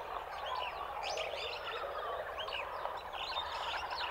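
Outdoor ambience of many small birds chirping and whistling at once: a dense chorus of short rising and falling calls over a steady low background.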